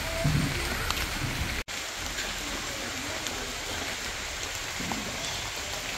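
Steady rain falling, with scattered drops ticking on a nearby surface. The sound cuts out for an instant about a second and a half in.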